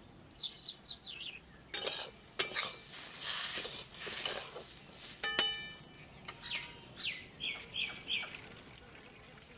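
Metal spatula scraping and stirring rice frying in ghee in a metal wok, for a few seconds in the middle. Birds chirping in short repeated calls before and after the stirring.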